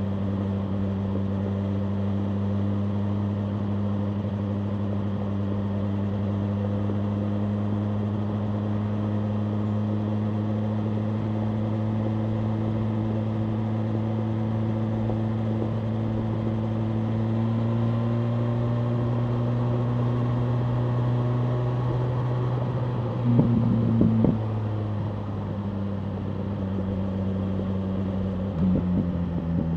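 BMW M1000R Competition's inline-four engine running at steady cruising revs, its note slowly climbing. About 23 seconds in there is a brief spell of louder crackling noise, after which the engine note settles a little lower, with more crackling near the end.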